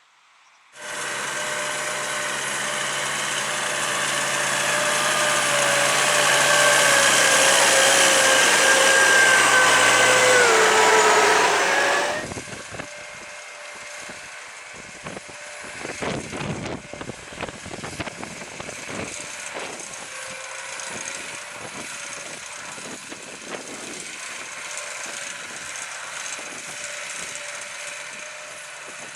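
Case IH Puma 200 CVX tractor's six-cylinder diesel working under load while deep ploughing: a loud engine with a steady whine that dips in pitch. About twelve seconds in it cuts abruptly to quieter engine running with irregular crackling.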